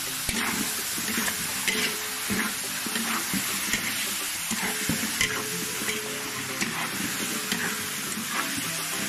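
Food sizzling in hot oil as it is stir-fried, with a spatula scraping and knocking against the pan about twice a second.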